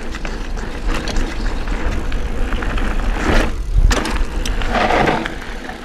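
A mountain bike rolling over dirt and gravel, knobby tyres crunching with scattered clicks and rattles, under heavy wind rumble on a bike-mounted action camera's microphone. The noise swells twice, then fades away near the end.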